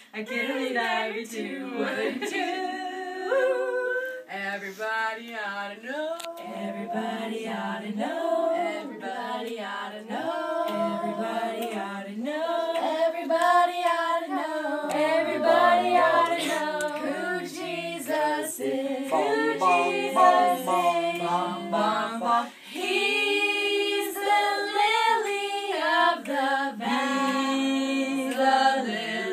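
Voices singing a song together without accompaniment, with a brief pause about three-quarters of the way through.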